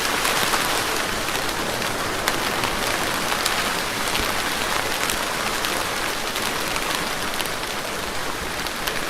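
Steady rain falling, a continuous hiss with scattered sharp drop ticks.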